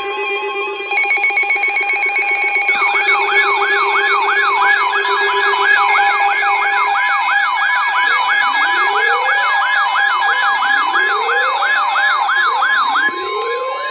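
Electronic sirens and alert tones layered together. Steady alarm tones come first; about three seconds in, a fast yelp starts sweeping up and down about three times a second, and from about eight seconds in a slow rising wail repeats every couple of seconds.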